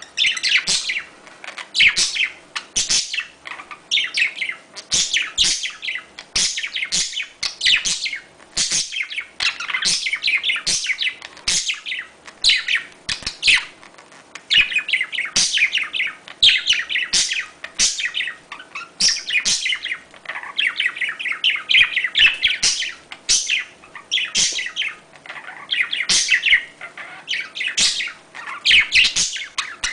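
Budgerigars chattering and warbling continuously in fast, clustered chirps: the excited calling of budgies in breeding condition.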